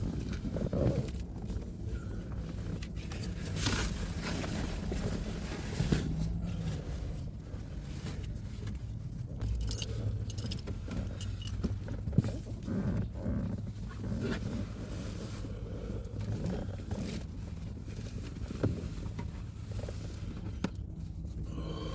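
Scattered rustling, clicking and jingling handling noises over a steady low hum.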